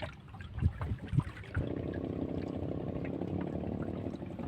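A few knocks on the boat, then a small boat engine comes in suddenly about a second and a half in and runs steadily.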